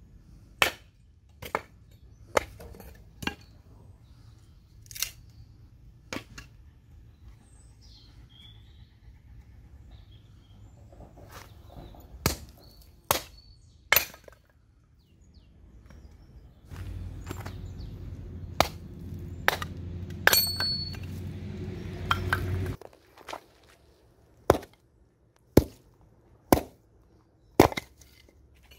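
Hatchet splitting kindling: sharp woody knocks and cracks as the blade strikes and splits small pieces of firewood, in uneven groups of a few strokes with pauses between. For several seconds in the middle a low rumble lies under the strokes and stops abruptly.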